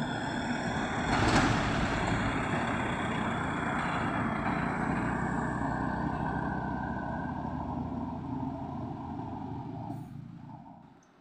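Diesel truck engine running as the lorry drives past close by, loudest about a second in, then fading as it pulls away up the road.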